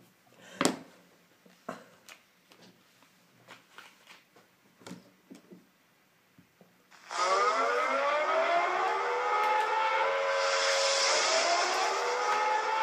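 A few faint clicks of handling, then about seven seconds in an air-raid siren starts up, its pitch rising and then holding steady, played back through a phone.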